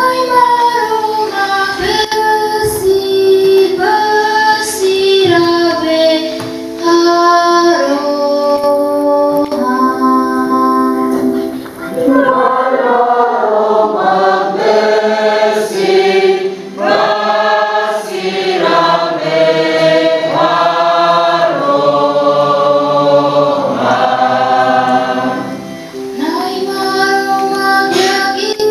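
Church choir singing a psalm, in phrases separated by short breaks.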